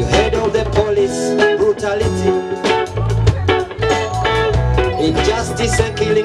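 Live band music: an electric guitar melody over bass guitar, a Yamaha drum kit and hand drums, with a steady beat.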